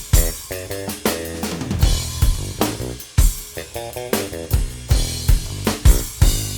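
Music with a heavy drum beat: kick drum, snare and hi-hat over a deep bassline, with short repeated melodic figures.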